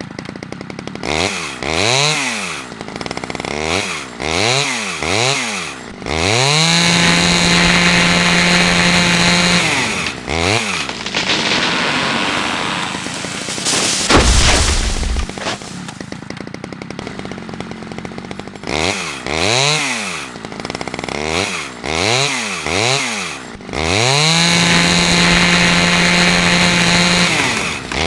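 Chainsaw revved in a series of quick throttle blips, then held at full throttle for a few seconds before dropping back to idle. The pattern repeats twice, with a sudden loud crash about halfway through.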